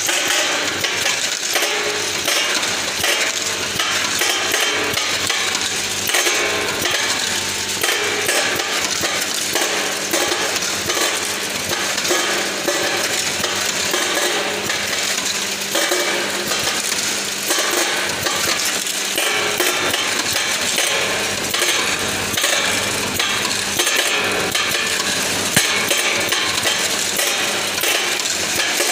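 Automatic capsule-and-tablet counting machine running: hard capsules rattle and click densely as its vibratory feeder trays shake them along the channels, over a steady low hum.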